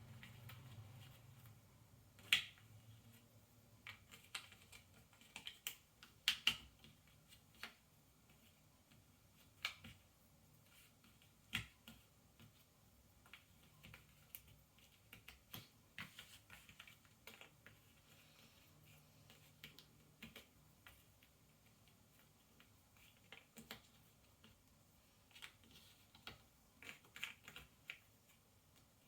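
Ravensburger 300-piece cardboard jigsaw puzzle pieces being handled on a tabletop and fitted together: scattered, irregular light clicks and taps, with a few sharper snaps.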